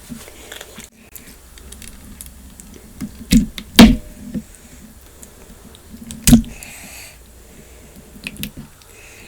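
Close-miked handling noise: soft clicks and squishes, with three loud sharp knocks near the middle.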